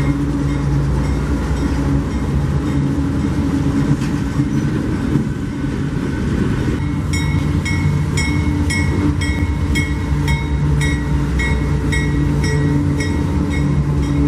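CSX freight train's diesel locomotives running steadily as the train passes. About halfway through, a rapid repeating ding of about three strokes a second joins in.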